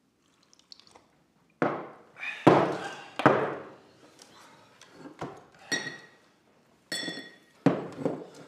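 Ceramic wine bowls set down hard on a wooden table: three heavy thunks about a second apart, followed by lighter clinks and taps of chopsticks and dishes.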